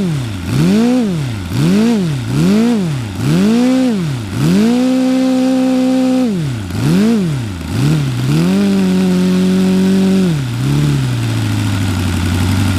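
Saito FA-90R3 three-cylinder four-stroke radial model aircraft engine and propeller, running on E85 pump fuel with no nitro, being revved: about six quick throttle blips up and down, then held at high revs twice for about two seconds each, and dropping back to a steady idle near the end. The owner says the idle mixture needs leaning.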